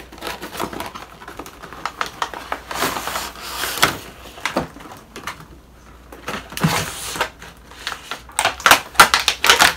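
A clear plastic egg tray and its cardboard box being handled while unpacking: scattered crinkles and clicks of thin plastic, coming in clusters and loudest near the end.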